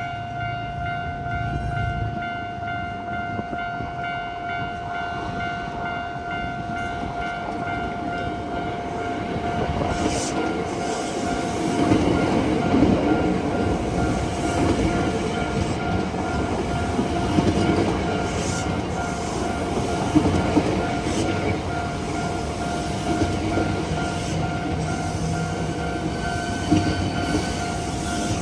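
Level-crossing warning bell ringing steadily while a Hankyu electric train runs past, its wheels clicking over the rail joints from about ten seconds in.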